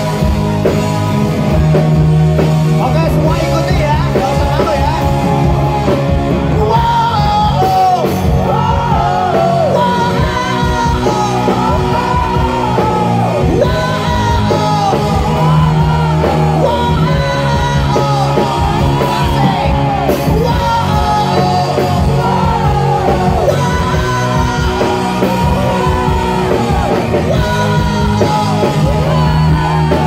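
Live rock band playing, with electric guitar and bass guitar under a male lead singer whose vocal line slides up and down in pitch.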